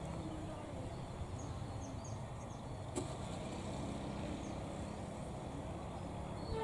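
Low, steady rumble of an approaching CC201 diesel-electric locomotive heard from a distance, with faint bird chirps over it.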